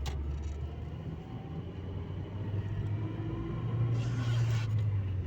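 Car engine and road noise heard from inside the cabin while driving, the low engine hum rising in pitch as the car picks up speed. A swell of rushing noise comes about four seconds in.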